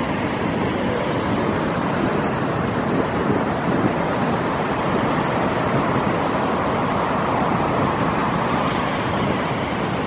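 Heavy ocean surf breaking against rocks and over an ocean rock pool wall: a loud, steady rush of crashing waves and foaming backwash.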